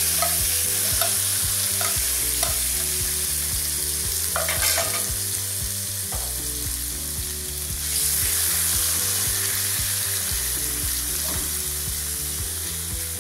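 Seasoned chicken cubes frying in hot olive oil in a frying pan: a loud, steady sizzle with a few short clicks, swelling a little about eight seconds in.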